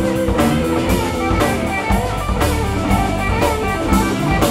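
Live alt-country rock band playing an instrumental passage between sung lines: guitars, bass and drum kit.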